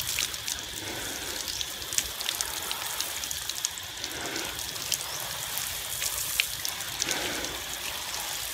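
Water showering from a hose spray nozzle onto potted plants and their soil: a steady hiss of falling water with many small sharp drop clicks on leaves and pots.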